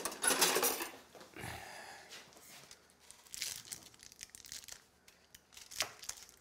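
Foil wrapper on a block of processed cheese crinkling and tearing as it is peeled back, loudest in the first second, then quieter scrapes and rustles as a knife cuts into the cheese, with one sharp click near the end.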